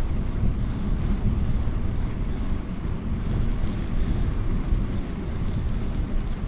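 Wind buffeting the microphone of a camera on a moving bicycle: a steady low rumble with no distinct events.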